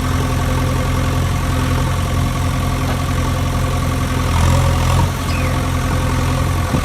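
An engine idling steadily with an even, low running note, slightly louder for a moment about four seconds in.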